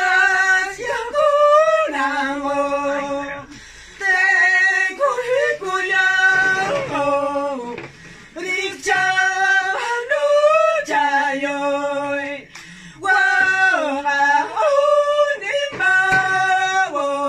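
Two women singing a warawi (harawi), a traditional Andean song, unaccompanied: high, long-held notes that slide from one pitch to the next, in phrases of about four seconds with short breaks between them.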